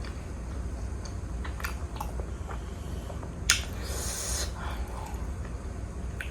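Close-up eating sounds from chewing juicy pork momo: small wet mouth clicks, then a sharp smack about three and a half seconds in followed by a short hissing suck. A steady low hum runs underneath.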